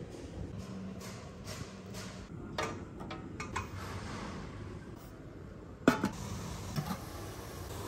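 Kitchen handling sounds: scattered light clinks and knocks of dishes and utensils, the sharpest about six seconds in, with a smaller one just after.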